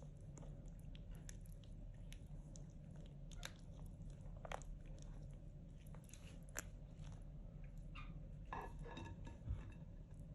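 Quiet chewing and crunching of food, with small scattered clicks over a steady low hum.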